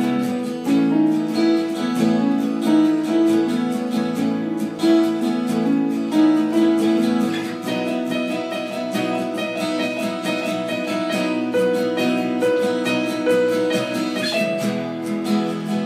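Acoustic guitar strumming with a Casio keyboard playing chords and melody notes alongside, an informal instrumental jam; the chord pattern shifts about halfway through.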